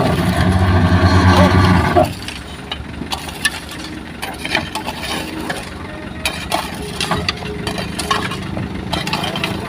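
A heavy diesel engine running loud and steady, which drops off abruptly about two seconds in to a lower background engine hum with scattered clicks and knocks.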